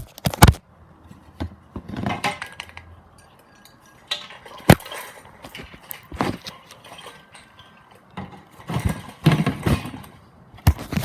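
Irregular knocks, clinks and rattles of an old GE vent-type ceiling fan's metal housing being handled and turned over, with sharp knocks near the start, about halfway and near the end.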